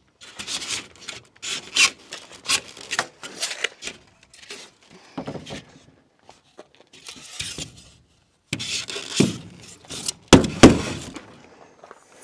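Rigid foam ICF panels rubbing and scraping in irregular strokes as they are handled and pressed into place on the wall, with a couple of louder knocks late on.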